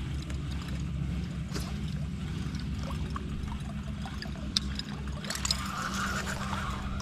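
A boat motor hums steadily while water trickles and splashes against the hull, with a few light clicks.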